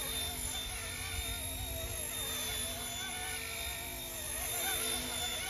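Small electric RC scale helicopter (RC ERA C189, MD500 body) in flight: a steady whine of its motor and rotor, its pitch wavering up and down as the throttle changes.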